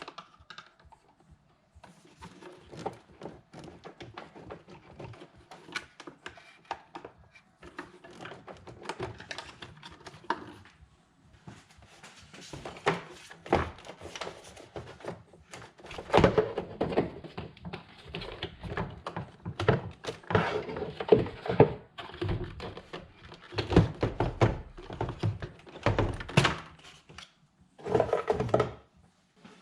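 Irregular knocks, clicks and hollow plastic clunks from hands working on the engine's air intake: connectors unclipped and intake ducting pulled loose and handled. The knocks come thicker and louder in the second half.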